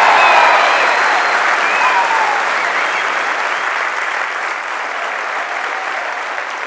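Loud applause from a large auditorium audience, strongest at the start and slowly dying down. A few voices call out over the clapping in the first two seconds.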